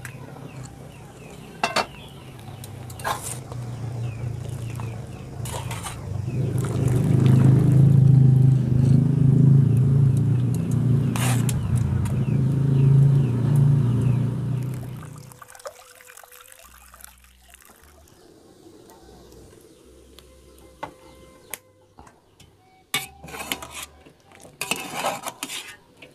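Aluminium cookware clinking on a wood-fired clay stove: a few sharp metal clinks of lid and utensils, and a quick run of clinks near the end as a wire strainer scoops boiled jengkol out of the pot. In the middle a loud low rumble lasts about nine seconds and then drops away.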